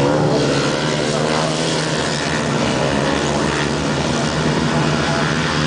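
Engines of several 500cc grasstrack racing sidecar outfits running loud and steady as they race past together.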